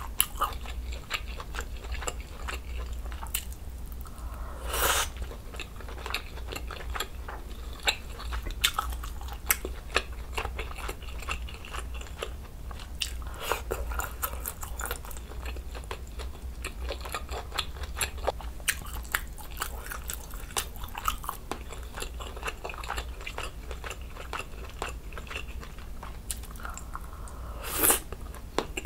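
Close-miked chewing and biting of budae jjigae (ham, sausage and cheese in spicy broth): a steady run of small wet mouth clicks. Two short louder sounds stand out, one about five seconds in and one near the end.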